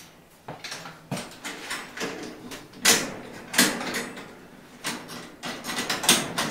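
Wooden-framed wire-mesh enclosure door being handled and shut: a string of knocks, clicks and short rattles, the sharpest about three seconds in and again near the end.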